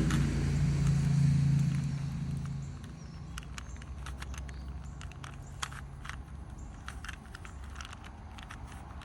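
Irregular sharp clicks of a Rubik's Cube's plastic layers being twisted, with a low engine hum that fades out over the first three seconds.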